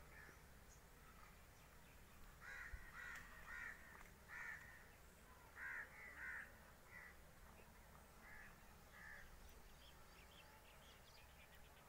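Faint bird calls in an orchard: a run of short calls starting about two seconds in and petering out near the end, over a low steady background hiss.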